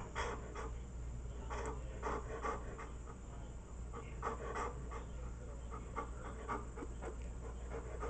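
Dog panting in a steady rhythm of short breaths.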